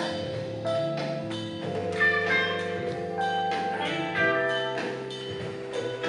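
Music playing, with held notes that change every second or so.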